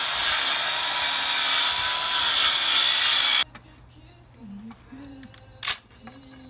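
Power saw ripping a 2x4 lengthwise, running loud and steady under load, then cutting off suddenly about three and a half seconds in. A single sharp knock follows near the end.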